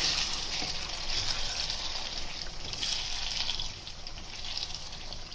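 Chicken in a tomato and yogurt masala sizzling in oil in a frying pan while it is stirred with a silicone spatula: a steady frying hiss, a little quieter near the end.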